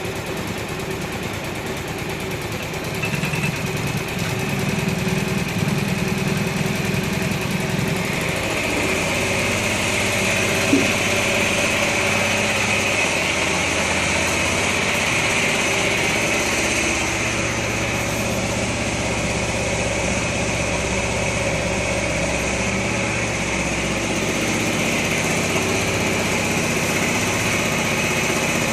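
Suzuki Burgman (Skywave) scooter engine running steadily at idle just after starting on its newly replaced starter motor. It grows a little louder about three seconds in, then settles to an even idle.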